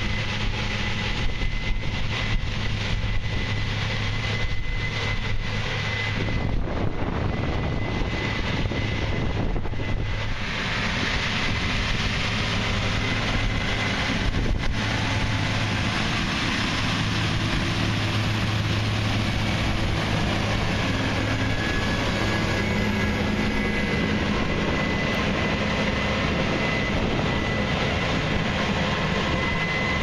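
Case IH 8120 combine harvesting corn with an 8-row corn head: its diesel engine and machinery run with a steady drone and a thin high whine. The combine draws close and then moves away.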